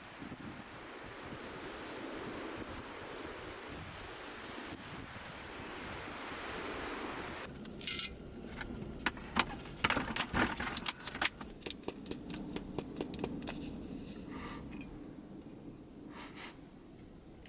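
Steady rush of ocean surf with wind, which cuts off about eight seconds in and gives way to a run of irregular sharp clicks and clinks, like small hard objects knocking together.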